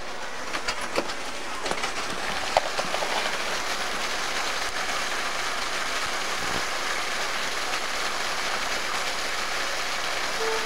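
Water gushing from an open fire hydrant and splashing onto the pavement: a steady rushing hiss, with a few sharp taps in the first few seconds.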